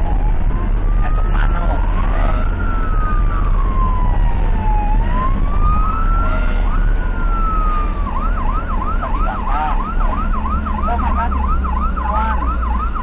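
Ambulance siren wailing, its pitch rising and falling slowly, then switching about eight seconds in to a fast yelp of about three sweeps a second. Under it runs a steady low rumble from the moving ambulance.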